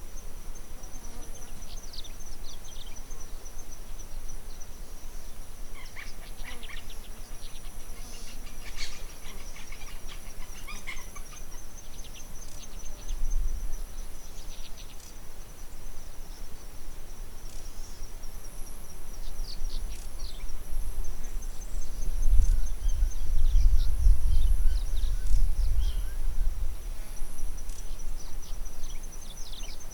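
Outdoor ambience: an insect trills steadily on one high, finely pulsing note, with scattered short bird chirps. A low rumble swells for a few seconds about two-thirds of the way in and is the loudest thing there.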